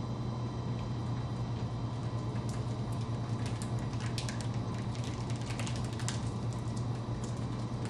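Roll laminator's motor-driven rollers running in forward with a steady low hum, scattered light clicks and crackles over it as the threading board and laminating film feed into the rollers.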